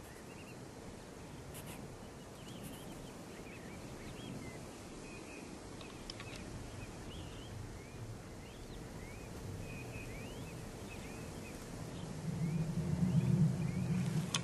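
Outdoor ambience with scattered short bird chirps and a faint steady hum. About twelve seconds in, a louder low sound rises for around two seconds.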